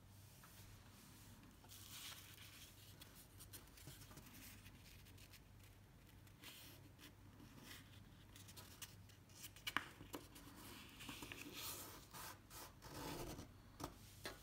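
A sheet of paper being folded by hand into a paper airplane: faint, intermittent rustling and crinkling as the flaps are folded and the creases pressed flat, with a sharper crackle about ten seconds in.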